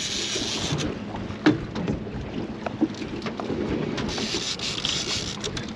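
Wind buffeting the microphone over water slapping against a small boat's hull, with scattered knocks and clicks. The sharpest knock comes about a second and a half in.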